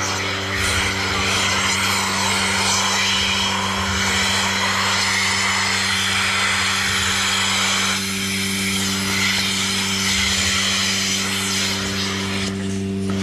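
Steady machinery hum with an even hiss over it, with no change in pitch.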